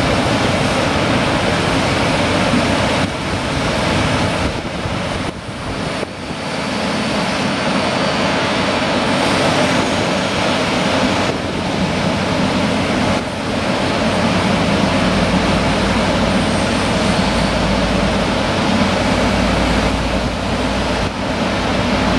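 Regional train of double-deck coaches hauled by a red electric locomotive running out of the station, a steady rumble of wheels on rails with a faint motor hum.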